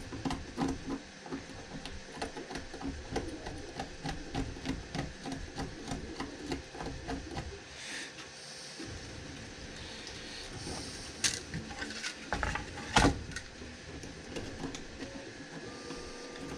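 Pocket knife blade scraping along a spliced length of 3D printer filament in quick, short strokes, shaving the weld seam smooth. Two louder sharp clicks come about two-thirds of the way through.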